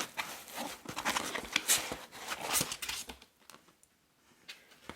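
Packaging being handled as contents are pulled out of a cardboard shipping box: busy rustling, scraping and light knocks for about three seconds, then a few softer knocks.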